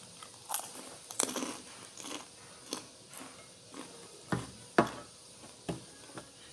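Close-up eating sounds: about ten irregular crisp crunches of someone biting and chewing kerupuk kulit (fried skin crackers), the loudest a little after one second and near five seconds in.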